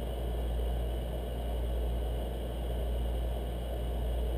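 A steady low hum with a faint hiss above it, unchanging throughout; no distinct clicks from the piston rings stand out.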